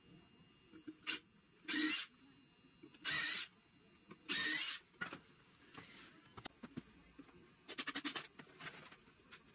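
Cordless drill boring into a hardwood rail in three short bursts, each about half a second. Near the end comes a quick rattle of about eight sharp clicks.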